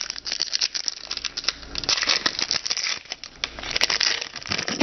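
Paper and plastic crackling and rustling as trading cards and their pack wrapper are handled. It is a dense run of small clicks and crinkles, busiest near the start and again about four seconds in.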